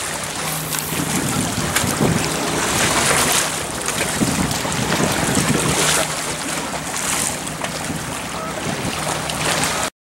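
Wind blowing on the microphone over lake water washing against the pier: a steady rushing hiss that swells now and then. It cuts off abruptly just before the end.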